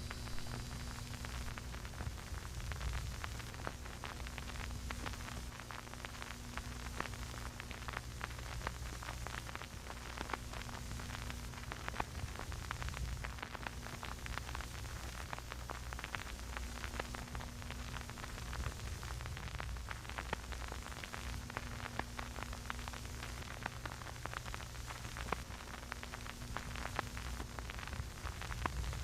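Dense, continuous crackling static over a steady low hum.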